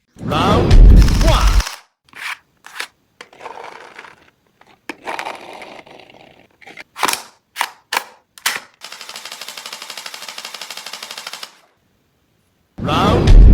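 Toy gel blaster firing: a loud booming blast at the start and another near the end, sharp clicks in between, and a full-auto burst of about ten shots a second lasting nearly three seconds.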